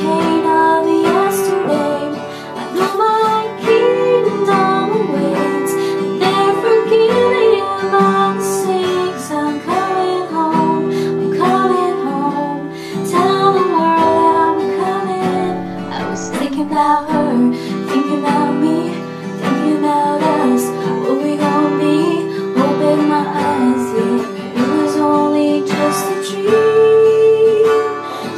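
Acoustic guitar strummed through a repeating four-chord progression, with a woman singing a melody over it.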